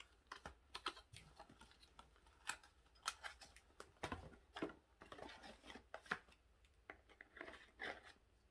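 Faint, irregular clicks, taps and light rustles of small plastic items and packaging being handled.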